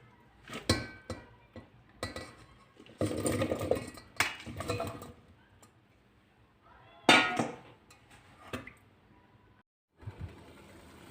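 Dishes and pots clinking and clattering as they are handled, with several sharp clinks and short scraping clatters. The loudest clink comes about seven seconds in and rings briefly. Near the end a faint steady hiss follows a short gap.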